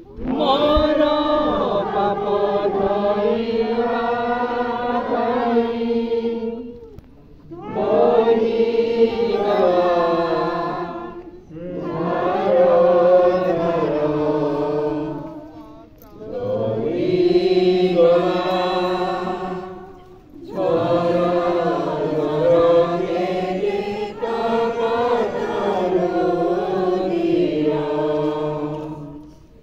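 A group of voices singing a slow devotional hymn in long held phrases of about four to six seconds, with short breaks between the lines.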